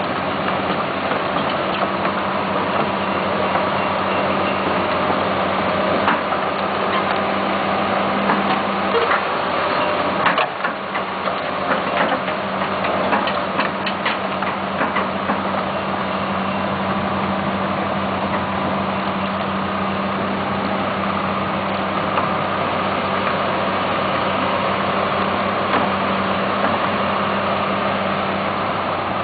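John Deere 200LC hydraulic excavator's diesel engine running steadily, with scattered clicks and knocks from about six to sixteen seconds in as the boom and bucket are worked.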